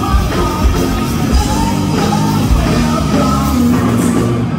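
Hard rock band playing live over a concert PA: distorted electric guitars and drums.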